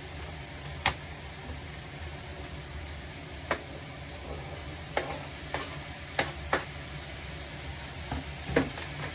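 Ground pork and sliced cucumber sizzling in a frying pan on an induction cooktop, a steady frying noise over a low hum. Short sharp knocks of cooking utensils against the pan come about eight times at irregular intervals.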